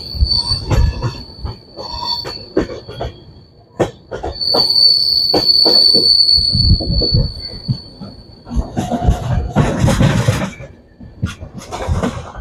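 Passenger train running on the track: a high steady wheel squeal comes and goes, loudest for about three seconds in the middle, over the rumble of the coach and the clack of wheels over rail joints. A louder rushing surge of noise comes near the end.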